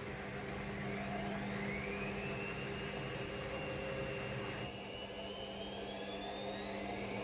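Hotpoint Extra WMXTF942 washing machine's brushed motor speeding the drum up on a service-mode spin. A whine rises in pitch from about a second in, levels off, then starts climbing again near the end.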